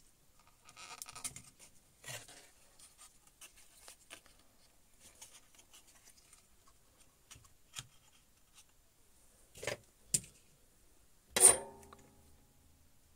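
Light rustling, scraping and ticking of hand tools and a circuit board being handled while a replacement Schottky diode is fitted to a monitor power supply board. Several sharper clicks come near the end; the loudest, about eleven and a half seconds in, rings briefly.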